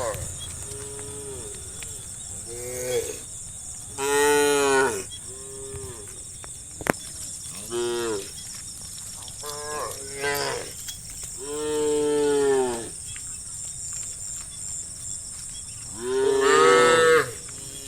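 Several cows in a herd mooing one after another, about eight calls, each a short pitched rise and fall, the loudest three near the start, middle and end. A single sharp click is heard about seven seconds in.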